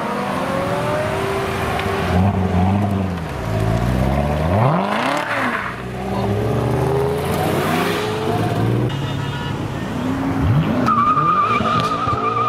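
Performance car engines revving and rising and falling in pitch as cars pull away one after another. Near the end a steady tyre squeal starts and holds as a BMW M6's rear tyres spin in a burnout.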